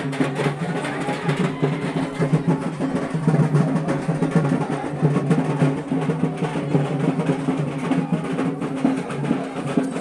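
Drums beating in a fast, continuous roll.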